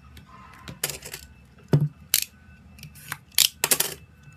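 Albums handled on a tabletop: a few knocks and clicks, a dull thud as one is set down about two seconds in, and short crinkling rustles of a clear plastic sleeve near the end.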